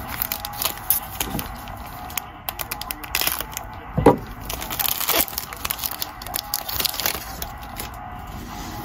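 Crinkling and rustling of trading cards and their packaging being handled, with irregular small clicks and a couple of sharper snaps.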